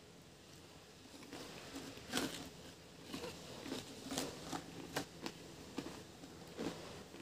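Close-up crunches and clicks of Pringles potato chips being chewed and taken out of the can, a string of sharp cracks with the loudest about two seconds in.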